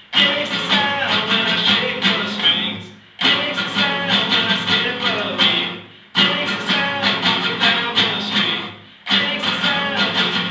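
Acoustic guitar played live: a repeating figure of plucked notes in phrases about three seconds long, each fading into a brief gap before the next one starts.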